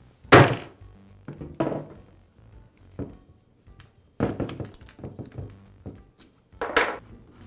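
A mallet striking a large Allen wrench clamped in a DeWALT drill chuck: two sharp knocks about a second apart near the start, the shock that breaks the chuck's thread free from the spindle so it can be unscrewed. Further clunks follow later as the wrench and chuck are handled.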